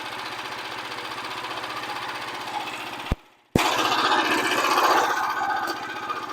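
Portable Frontier band sawmill's small gasoline engine running steadily. The sound drops out for a moment about three seconds in and comes back louder.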